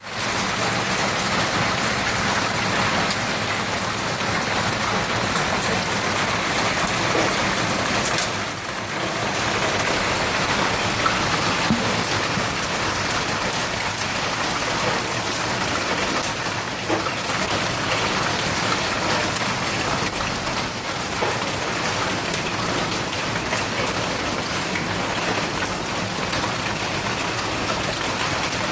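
Hail pounding down on streets and roofs, a dense, steady clatter like heavy rain, easing briefly about eight seconds in.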